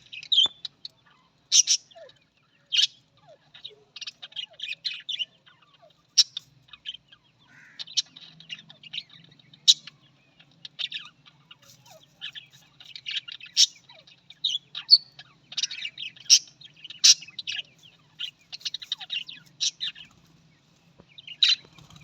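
Birds chirping and chattering in quick, irregular high-pitched notes, with no settled repeating call.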